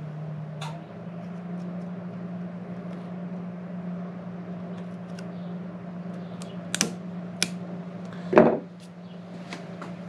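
Pliers clicking and clunking against a Toro two-stroke mower's carburetor and fuel-line fitting: two or three sharp clicks, then a louder clunk about eight seconds in, over a steady low hum.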